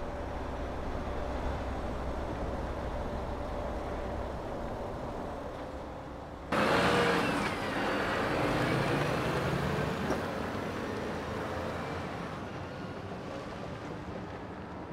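Volvo FMX truck driving slowly over rough, rocky ground, its diesel engine running steadily. About six and a half seconds in the sound jumps suddenly louder and brighter, a fuller engine and driveline noise from the loaded truck, then slowly fades.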